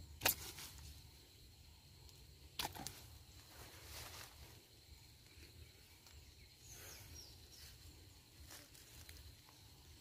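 Quiet riverside ambience: two sharp knocks, one right at the start and one under three seconds in, over a faint steady insect-like tone and low rumble, with a few short falling bird chirps around the seventh second.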